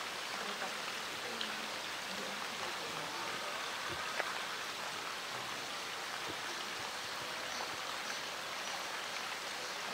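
Steady hiss of falling rain, with one faint tap about four seconds in.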